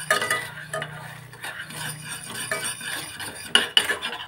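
A utensil stirring and scraping a thick beetroot-juice, ghee and glycerin paste in a pan over low heat, with irregular clinks against the pan. The paste is kept moving so it does not stick to the bottom.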